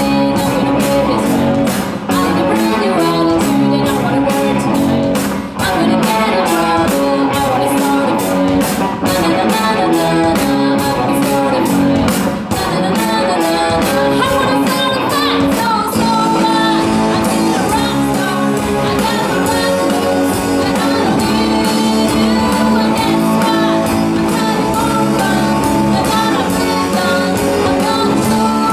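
Live rock band playing: electric guitars, bass guitar and drum kit with a steady beat, and a woman singing into a microphone over the PA.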